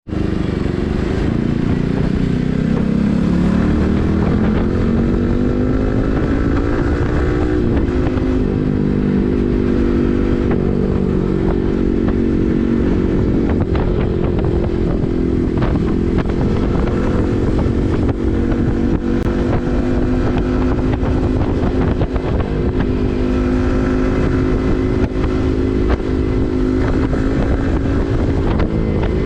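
Yamaha MT-15's 155 cc single-cylinder engine running through an SC Project full-system exhaust while riding. Its note climbs over the first several seconds, dips briefly about seven seconds in, then holds fairly steady.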